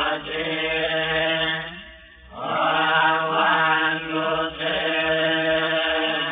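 Buddhist chanting in Pali, recited nearly on one steady pitch in long held lines, with a short break about two seconds in.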